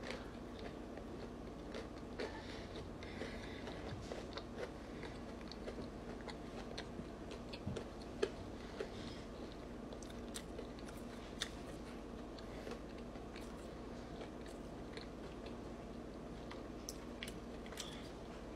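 A person chewing a breaded fried chicken tender close up, with small crunches and mouth clicks scattered throughout, over a faint steady hum.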